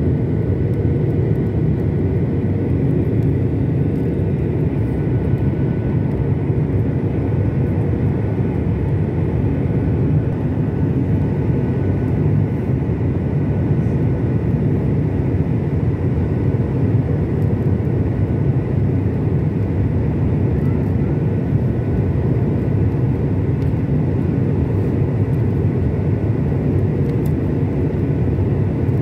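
Jet airliner cabin noise heard from a window seat beside the engine: a steady deep rumble of engines and airflow, with a faint high engine whine, as the plane makes its final approach and lands.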